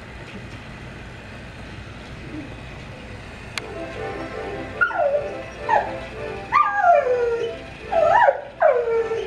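A dog whimpering and yelping in a run of about five short cries, each falling in pitch, starting about halfway through; before them only a steady low hum.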